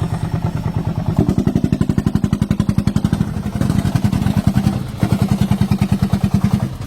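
Diesel engine of a homemade farm vehicle running with a fast, even thudding beat, revving up about a second in and held there, with brief dips: working under load while the vehicle is bogged down.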